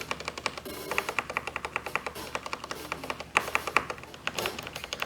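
Typing on a mechanical keyboard with red linear switches and PBT keycaps: quick, irregular key clacks, several a second.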